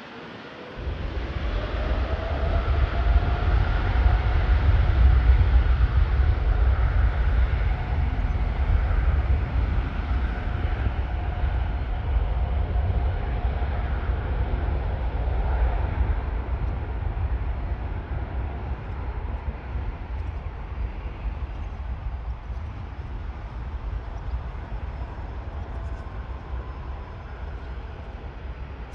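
Boeing 787-10 airliner's Rolls-Royce Trent 1000 turbofans at takeoff power, a deep jet rumble with a faint whine. It comes in suddenly about a second in, is loudest a few seconds later, then slowly fades as the jet departs.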